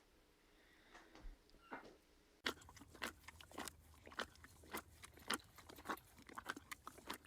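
Chewing and crunching: from about two and a half seconds in, a rapid, irregular run of crisp crunches, after a few faint clicks.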